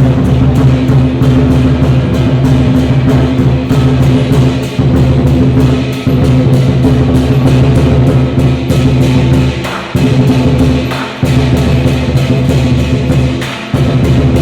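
Loud Chinese dragon dance drumming: drums beaten in a fast, dense run of strokes, with a few brief breaks in the last few seconds.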